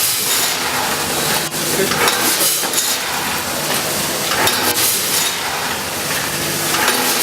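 Roll-film bag packaging machine running: a steady, loud hissing clatter with a few sharp clicks.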